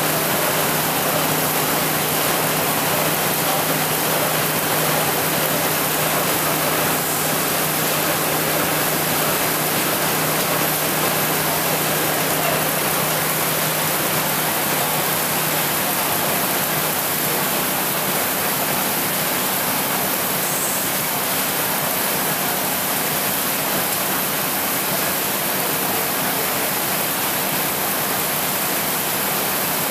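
E.C.H. Will paper sheeter running, a steady, even rushing noise of the machine and the paper web moving through it. A low hum underneath fades out about halfway through.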